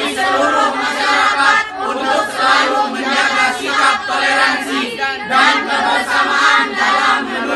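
A group of boys and girls chanting in unison, many young voices together, reciting a declaration.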